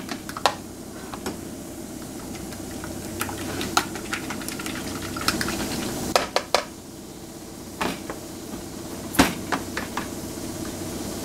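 Fork beating raw eggs in a dish, its tines clicking and tapping against the dish now and then, with a sharper knock near the end. A steady low hum lies underneath.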